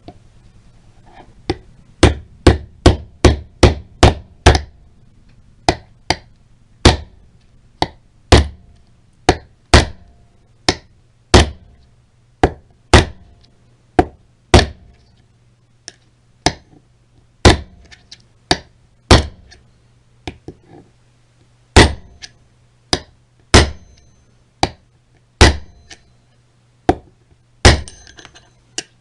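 Hammer blows on metal: a long series of sharp single strikes, quick at first at about three a second, then slowing to about one a second, with a brief pause about three-quarters of the way through. A faint steady hum lies underneath.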